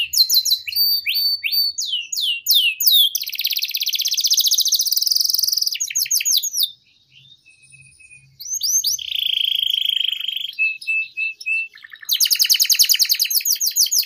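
Domestic canary singing a long, continuous song. It starts with quick runs of sharply falling notes, moves into fast rolling trills, drops out briefly about seven seconds in, then returns with a buzzy held phrase and another fast trill near the end.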